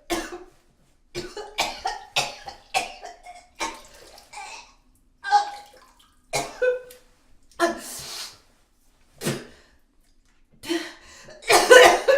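A person coughing and gargling in a long series of short, irregular bursts, the loudest near the end.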